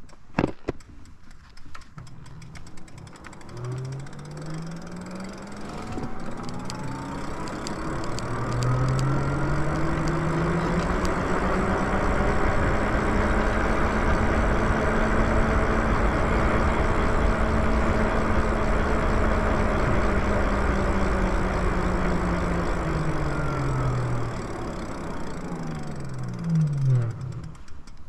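Lyric Graffiti e-bike's electric motor whining, its pitch rising as the bike speeds up over the first several seconds, holding steady while cruising, then falling as it slows near the end, with a rushing noise that grows with speed. A sharp click about half a second in.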